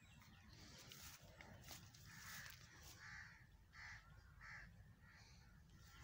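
A crow cawing faintly: about four caws a little under a second apart, starting about two seconds in.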